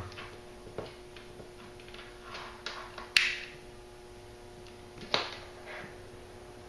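Lighter being struck to melt the cut paracord ends: two sharp clicks, each followed by a brief hiss, with a few lighter ticks of handling between, over a faint steady hum.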